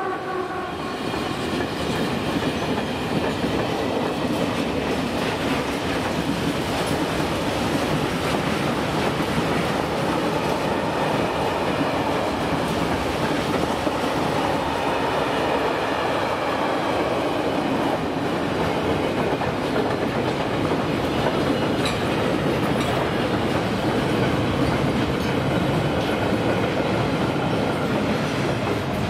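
A ČD Cargo freight train passing over the level crossing: a loud, steady rumble and clatter of wagon wheels on the rails that runs on with little change.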